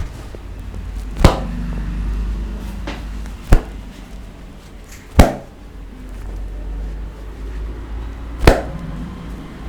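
Hand slaps of a barber's head massage: four sharp single smacks a few seconds apart, over a low steady rumble.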